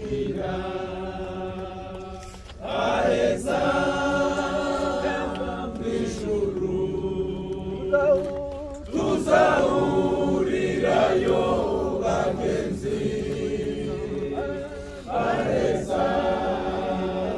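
Crowd of mourners singing together at a graveside, many voices in long held phrases that pause briefly about every six seconds.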